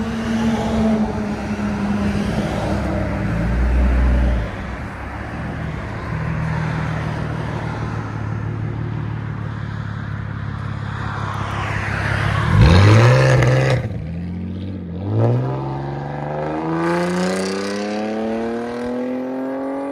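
2008 Dodge Charger's 3.5-litre V6 running through a straight-piped true dual exhaust with an X-pipe. It drones steadily while cruising. About two-thirds in it revs sharply up and back down, which is the loudest moment. It then climbs in a long, steady rise as the car accelerates.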